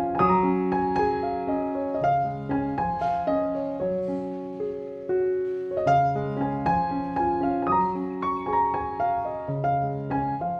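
Background piano music: a melody of struck notes over a lower accompaniment, moving in a repeating phrase.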